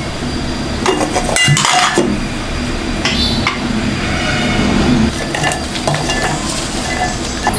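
Dishes and metal utensils clinking and scraping, with a few sharp clinks in the first three seconds or so, over a steady low hum.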